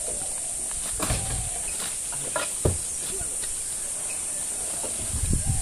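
Insects buzzing steadily, with a few light knocks and rustles from handling the bear and tarp on the pickup's metal tailgate.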